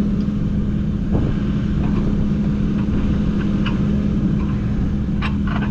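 Diesel engine of a piece of heavy construction equipment running steadily with a constant low drone, a few faint clinks of metal over it.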